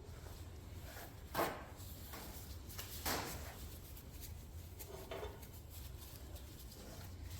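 Parts and tools being handled and sorted on a workbench: two louder brief clunks, about one and a half and three seconds in, and a softer one around five seconds, over a steady low hum.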